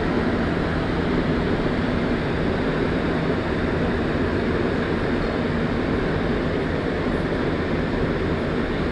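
Montreal Metro MR-73 rubber-tyred train heard from inside the car while running at speed through a tunnel: a steady, even rumble with no change in level.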